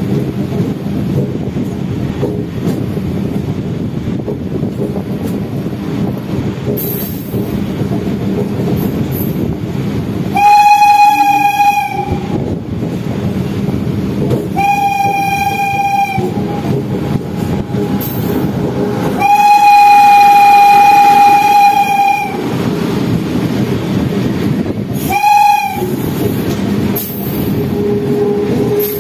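Electric train horn sounding four times: two blasts of about a second and a half each, a long one of about three seconds, then a short one. Under it runs the steady rumble of the train's wheels on the track, with a train passing on the adjacent line.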